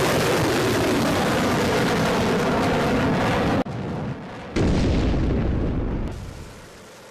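Roar of a BrahMos missile launch: a loud, sustained blast that cuts off abruptly about three and a half seconds in. After a short quieter stretch, a second blast starts suddenly and dies away over a second or two, leaving a low steady rush.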